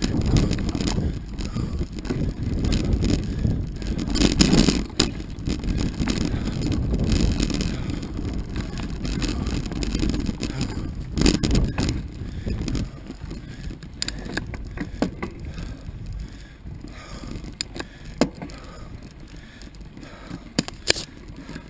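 Mountain bike ridden fast over a dirt trail and gravel road: tyre rumble and crunch, with frequent rattles and knocks as it hits bumps, and wind on the microphone. It gets quieter past the middle as the ride eases.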